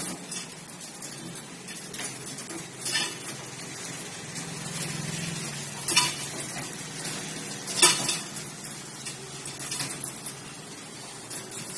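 Two rabbits scuffling inside a wire mesh cage, their scrambling setting off sharp metallic clanks and rattles of the cage wire every few seconds, the loudest about eight seconds in.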